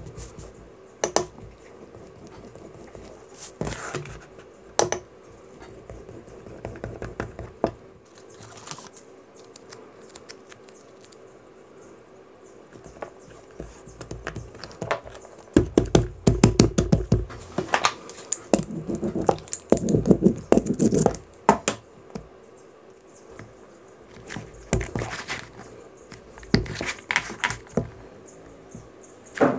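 Leatherworking handwork at the bench: scattered taps and clicks of tools on leather, with a dense run of rapid clicking and scraping in the middle and a few more bursts near the end.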